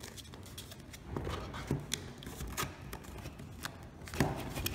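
Cardboard rustling and scraping with irregular light clicks as cardboard dividers are slid into a folded cardboard display box and their tabs pushed into slots, with a few soft knocks as they are pressed home.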